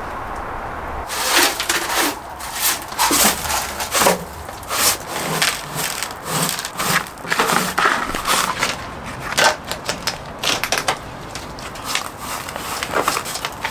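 Hand broom sweeping soil and grit across a bare painted metal van floor into a dustpan, in quick, irregular scraping strokes that start about a second in.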